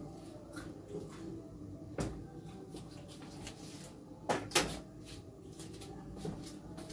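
Kitchen clatter: a steel cooking pot is handled and set down on the gas stove, with two loud clanks about four and a half seconds in and a lighter knock a couple of seconds before.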